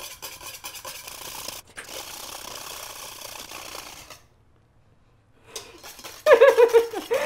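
Wire whisk beating thick, nearly finished mayonnaise by hand in a stainless steel bowl: rapid, even scraping strokes of the wires against the metal for about four seconds, as oil is drizzled in. It stops abruptly, and a woman's voice follows near the end.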